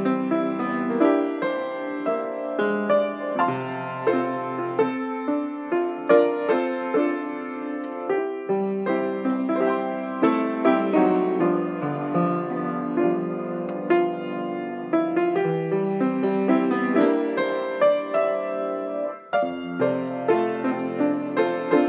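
Background solo piano music: a flowing piece of many quick struck notes over held chords and a low bass line.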